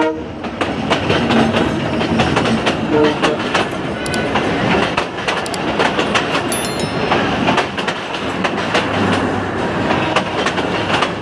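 Passenger train running through close by: a steady rumble with rapid clacking of wheels over rail joints, a short horn toot about three seconds in, and a brief high squeal near seven seconds.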